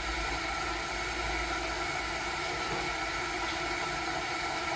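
Kettle heating a small amount of water toward the boil: a steady rushing hiss with a low rumble underneath.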